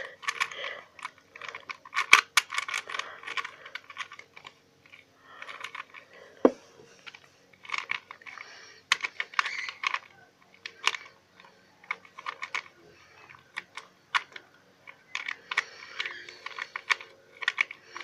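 Plastic clicking and rattling of Rubik's cubes, a 3x3 and then a 2x2, being scrambled by hand. The layer turns come in quick runs with short pauses between.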